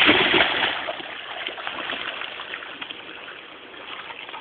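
Water splashing, loudest at the start and then fading to a steady wash of moving water.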